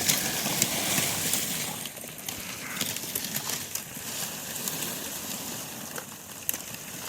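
A wind-driven sheet of lake ice breaking up as it pushes ashore: a dense, continuous crackling and clinking of ice pieces, loudest in the first two seconds.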